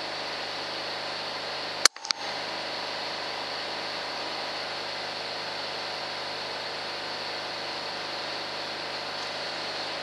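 Steady machine hum with a hiss, with one sharp click about two seconds in.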